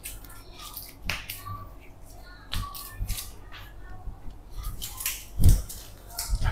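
Scattered short clicks and taps, with one heavier thump about five and a half seconds in: a patient's body being handled and shifting on a treatment bed during a bone-setting session.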